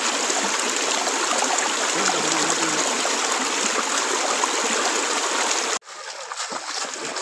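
Small rocky stream cascading over boulders: a steady rush of water. Near the end it cuts off abruptly, giving way to quieter, uneven splashing of feet wading through shallow water.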